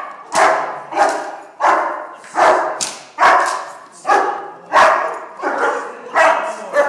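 German shepherd barking repeatedly as it is agitated by a decoy in protection bite work, about ten loud barks at a little more than one a second.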